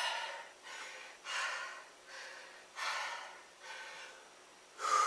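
A man breathing hard and fast, out of breath from a set of push-ups: quick rasping breaths in and out, strong and soft in turn, about every 0.7 seconds. Near the end comes a louder breath out with some voice in it.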